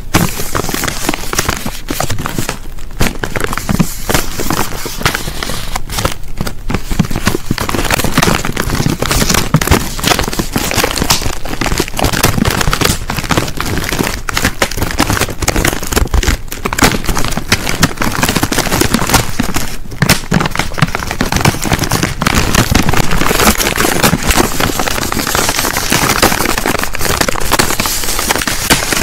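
Crisp packet being crinkled and rustled, a loud, dense run of crackles that goes on without a break.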